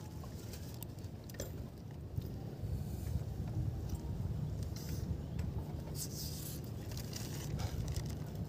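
Steady low wind rumble on the microphone, with scattered light scrapes, rubs and clicks.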